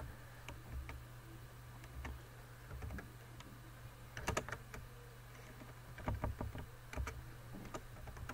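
Computer keyboard being typed in short, scattered bursts of key clicks, busiest about four seconds in and again around six to seven seconds, over a steady low hum.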